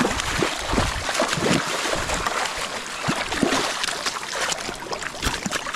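A hooked steelhead splashing and thrashing in shallow water as it is landed at the river's edge, with irregular splashes and knocks over the steady rush of the river.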